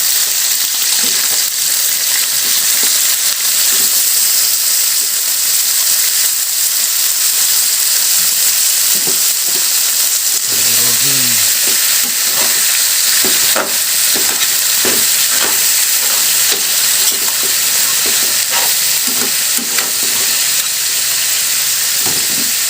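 Crab pieces and boiled bamboo shoots sizzling steadily in a hot pan while being stirred, with frequent short scrapes and knocks of the stirring utensil.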